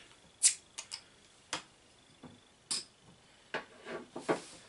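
Crown cap being prised off a glass beer bottle and the bottle handled: a string of about nine short, sharp clicks and clinks at uneven intervals, the loudest about half a second in.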